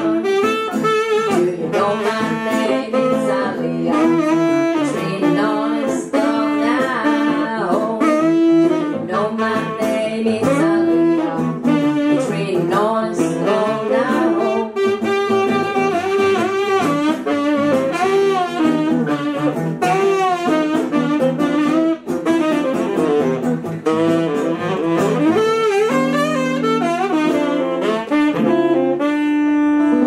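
Saxophone playing a continuous melodic solo over a steady accompaniment, an instrumental break between the sung verses of a song.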